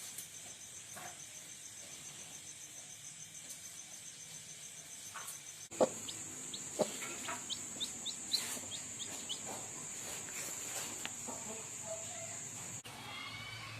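Crickets chirping in a steady high trill. Then, from about six seconds in, a run of about ten short, high, falling peeps from chicks, with a few sharp knocks at the start of it.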